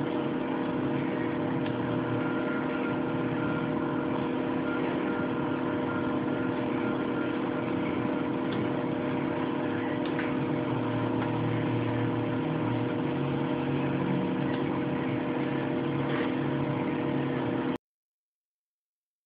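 A steady machine-like hum with several held tones, unchanging in level, which cuts off suddenly to dead silence a little before the end.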